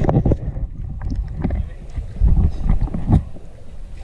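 River water sloshing and splashing right at the camera as it is held at the waterline, with irregular low surges and a few sharp slaps, loudest about two to three seconds in.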